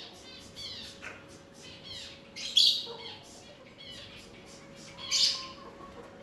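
Birds chirping: a run of short, high, falling chirps about two a second, with two loud harsh squawks, one near the middle and one near the end.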